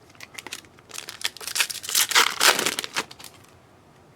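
Crinkling and tearing of a trading-card pack's foil wrapper as it is ripped open, a dense run of crackles that is loudest about two seconds in and stops about a second before the end.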